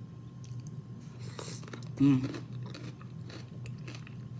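Close-up mouth sounds of someone eating: biting and chewing food with a crisp crunch about a second and a half in and small wet clicks after. A brief vocal sound comes about two seconds in.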